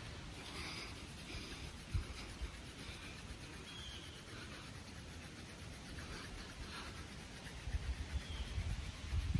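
A cattail-stalk hand drill rubbing in a cottonwood hearth board, making a steady dry scraping. Short faint chirps come through a few times, and there are low handling knocks near the end.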